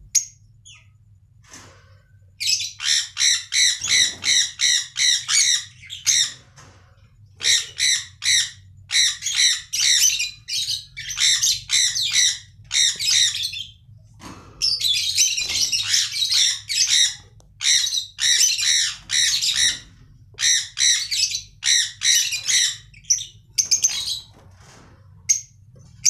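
Sun conures screeching: loud, harsh calls repeated about three to four times a second, in runs of several seconds with short breaks, starting a couple of seconds in and stopping near the end.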